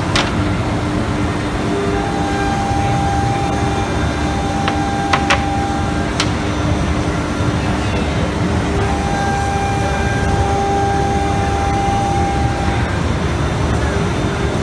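Automatic tool-change CNC router running: a steady mechanical rumble and hum, with a higher steady whine that comes in twice for a few seconds, and a few sharp clicks.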